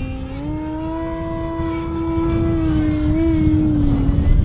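Brushless electric motor and propeller of an E-flite Extra 300 3D RC plane whining in flight. The pitch steps up about half a second in as the throttle comes up, holds, then sags slightly near the end, over a low rumble.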